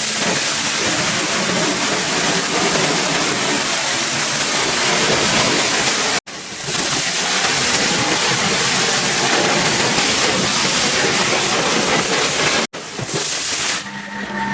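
Pressure-washer water spray hissing steadily against the car, cut off abruptly twice. Near the end the spray stops and a steady mechanical hum takes over.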